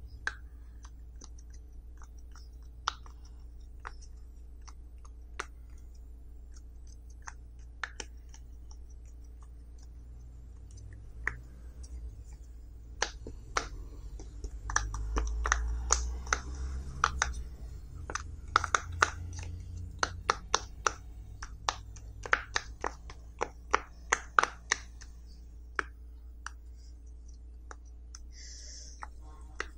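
Silicone pop-it fidget toy bubbles pressed through with fingertips, each giving a sharp little pop. The pops are scattered at first, then come in quick runs through the middle, with a low rumble of handling under them.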